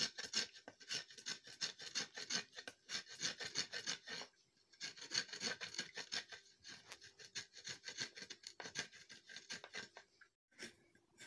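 Large curved iron knife scraping coir fibre off a coconut shell in quick repeated strokes, several a second, with a brief pause about four seconds in and another near the end.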